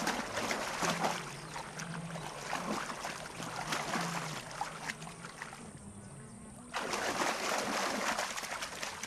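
Water splashing and churning as Nile crocodiles thrash at a wildebeest in the river. About seven seconds in comes a sudden louder rush of splashing as a herd of wildebeest runs through the shallows.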